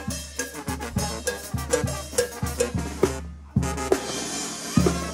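Live band music led by drums: timbales, snare and cymbals over a bass line, with a steady beat. The music stops for about half a second roughly three seconds in, then the drums come back in harder.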